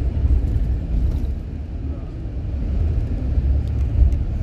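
Steady low rumble of a car driving along a road: road and engine noise heard from inside the vehicle.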